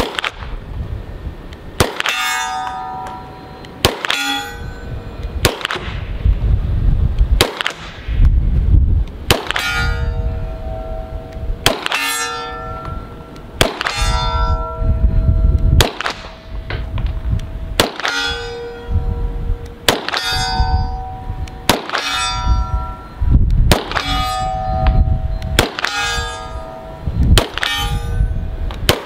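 An Arsenal Strike One pistol fired at a slow, steady pace, about fifteen shots roughly every one and a half to two seconds. Most shots are followed by the ringing clang of a steel target being hit. Strong wind buffets the microphone throughout.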